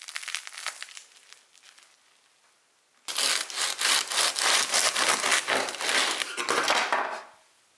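A crusty loaf of bread crackling as hands tear it apart, then, from about three seconds in, a serrated bread knife sawing back and forth through the hard crust until shortly before the end. The sawing is the loudest part.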